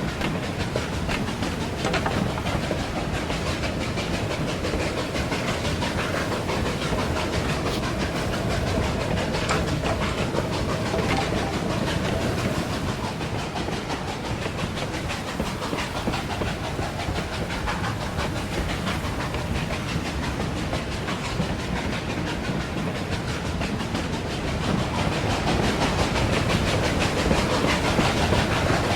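Hand-made foley of a steam locomotive under way: a continuous rhythmic clatter of wheels with steam hissing, growing a little louder near the end.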